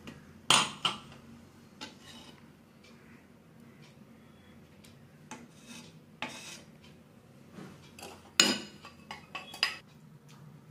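A metal spoon clinking against a glass and steel pans while rose syrup is spooned into the glass. The sharp clinks are spread out, the loudest about half a second in and about eight seconds in, with a quick run of them near the end.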